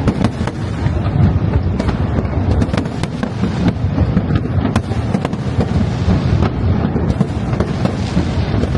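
Aerial fireworks display: a dense, continuous rumble of shell bursts with many sharp bangs and crackles layered over it.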